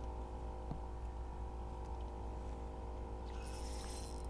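Boat motor running with a steady, even hum, with a brief hiss about three seconds in.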